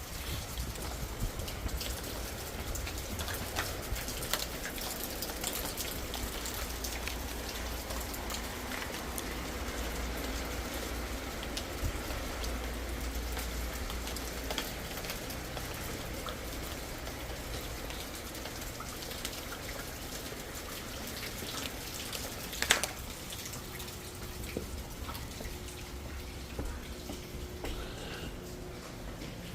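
Sleet and wet snow pattering steadily on surfaces as many fine ticks, over a low rumble of wind on the microphone. There is one sharp knock about 23 seconds in, and a faint steady hum comes in after it.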